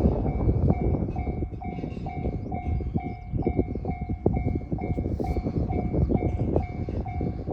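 Railway level-crossing alarm bell ringing a little over twice a second, over the heavy rumble and rapid clatter of a train passing through the crossing.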